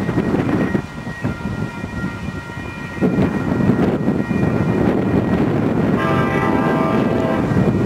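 Horn of an approaching commuter train's diesel locomotive sounding one blast of about a second and a half near the end. Under it, a heavy low rumble sets in about three seconds in.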